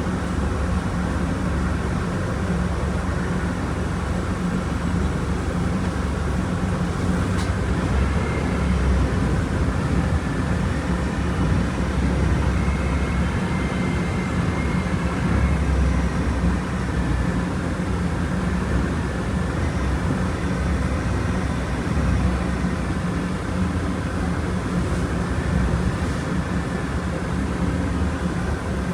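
Volkswagen Volksbus 17.230 Euro 6 bus's diesel engine running steadily, a continuous low drone that swells slightly now and then.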